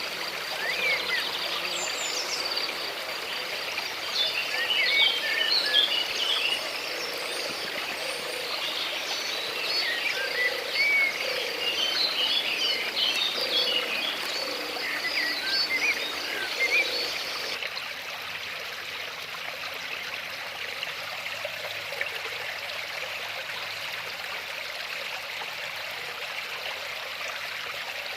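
Birds chirping, an insect trill and a low call repeating about once a second over running stream water. About seventeen seconds in the birds and insects cut off abruptly, leaving only the flowing water.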